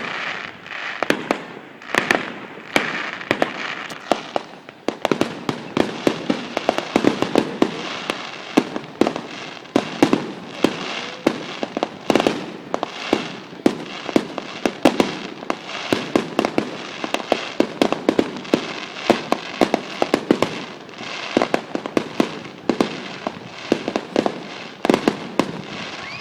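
Fireworks finale: a rapid, dense barrage of aerial shell bursts, several bangs a second with crackle between them, stopping suddenly at the end.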